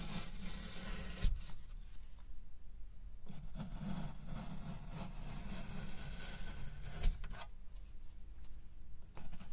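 Y-shaped vegetable peeler shaving thin strips off a block of packed kinetic sand, a soft scraping rub in short passes, with two brief clicks.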